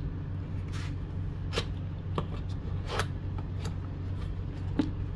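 Cardboard box being opened by hand: a handful of short, scattered scraping and rustling sounds as the seal tab is pulled and the flap lifted, over a steady low hum.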